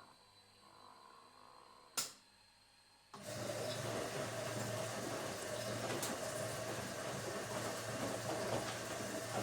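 Automatic washing machine: a single sharp click about two seconds in, then a second later the machine starts abruptly into a steady hum and rushing noise that keeps going.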